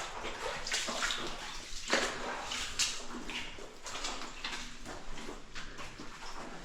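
Footsteps wading and splashing through shallow water on a flooded mine floor, in uneven swishes and sloshes.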